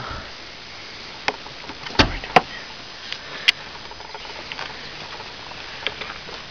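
Scattered clicks and knocks of someone climbing out of a car with a handheld camera, with a heavier thump about two seconds in.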